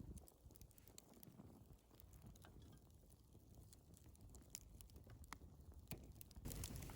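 Faint crackle of a small wood fire: sparse sharp pops and ticks over a low hush, growing a little louder near the end.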